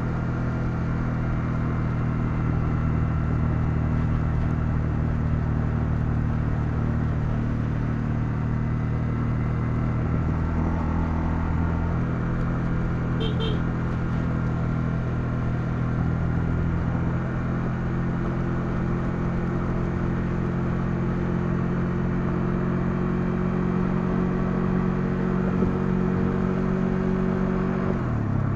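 Honda CL250 single-cylinder motorcycle engine running steadily while riding on the road. Its pitch shifts about two-thirds of the way through, and the revs drop sharply near the end.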